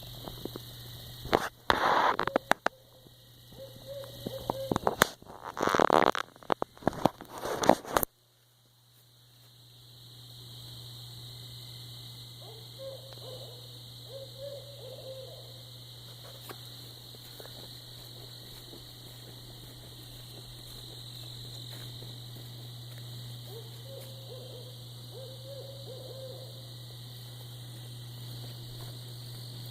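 An owl hooting: three short series of hoots spaced about ten seconds apart. Loud crackling noise covers the first eight seconds, and a steady low hum and a high steady hiss run underneath.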